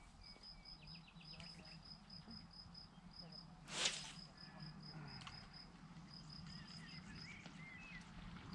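Insects chirping steadily in a quick pulsing rhythm, with a few faint bird calls. A short whoosh about four seconds in is the loudest sound.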